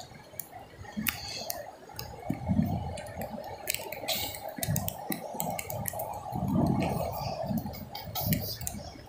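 Footsteps on wet beach sand at a walking pace, over the steady wash of surf, with scattered sharp ticks.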